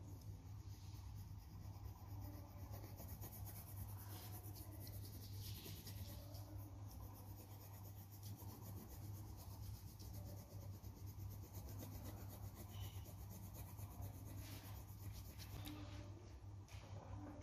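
Coloured pencil scratching on paper in rapid back-and-forth shading strokes, over a steady low hum.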